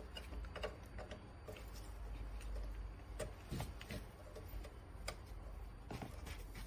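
Faint, irregular clicks and rattles of plastic wiring-harness connectors and cables being handled and pushed into the sockets on the back of a Mercedes NTG 5.0 radio head unit.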